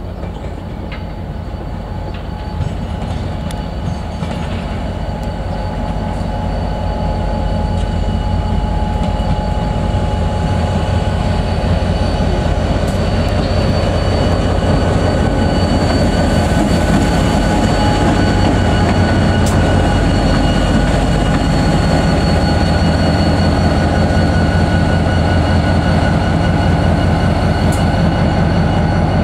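NIR 111 Class diesel-electric locomotive running light, its EMD two-stroke V12 diesel engine running as it approaches. The sound grows louder over the first ten seconds and then holds steady, with a steady high whine over the engine note.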